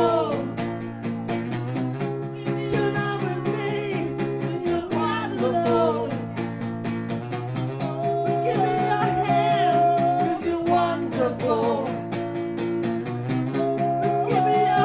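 Live acoustic guitar playing chords while a voice sings a melody, with one long wavering note held about eight to ten seconds in.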